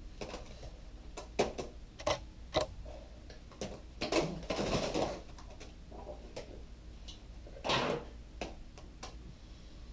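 Cream pies hitting faces and bodies in a pie fight: sharp clacks of pie tins and wet splats, with a longer messy burst about four seconds in and another near the end.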